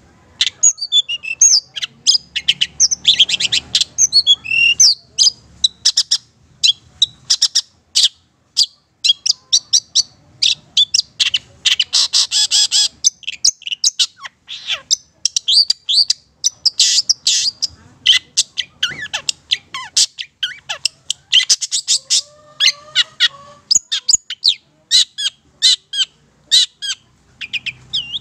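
Long-tailed shrike (cendet/pentet, Madura type) singing a fast, nearly unbroken chattering song of sharp, varied high notes, broken by several scratchy stretches.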